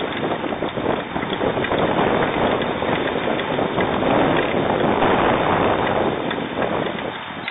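Jet airliner departing, its engine noise swelling to a peak about five seconds in and then fading.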